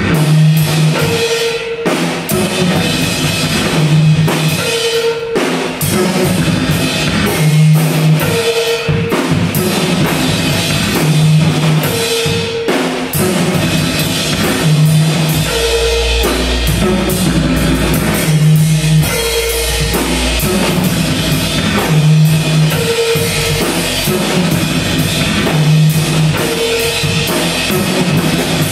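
Live acoustic drum kit played over electronic backing: a short pitched electronic note repeats about once a second, and a deep bass comes in about halfway through.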